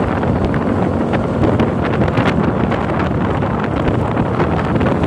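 Steady wind buffeting the microphone of a camera on a moving motorcycle, with a low rumble underneath.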